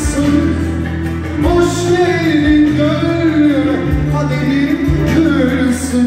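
Loud music for slow dancing: a wavering lead melody over held bass notes that change about every second.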